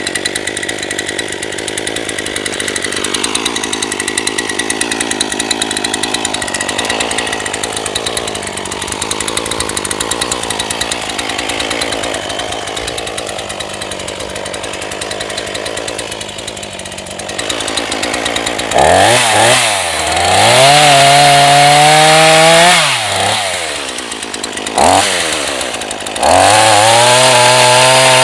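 NEO-TEC NH 841 gas chainsaw cutting wood, its engine labouring under load with a wavering pitch. About 19 seconds in it comes out of the cut and revs up and down several times, then holds at high revs near the end.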